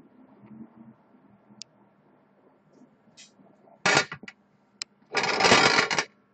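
A small whiteboard on a stand being set down on a glass tabletop: a sharp clatter about four seconds in and a few small knocks, then about a second of louder scraping and rustling as it is shifted into place.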